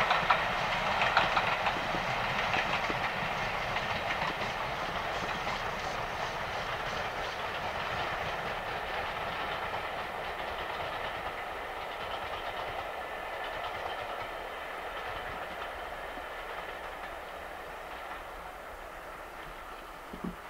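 LMS Ivatt Class 2MT 2-6-0 steam locomotive No. 46512 hauling a train of coaches past and away, its wheels clattering over the rail joints. The sound fades steadily as the train moves off into the distance.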